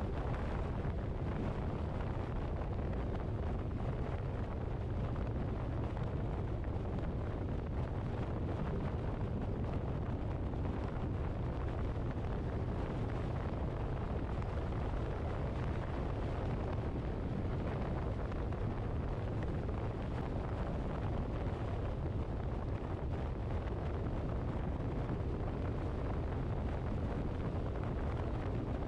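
Steady wind noise and low road rumble of a moving car, even throughout with no sudden sounds.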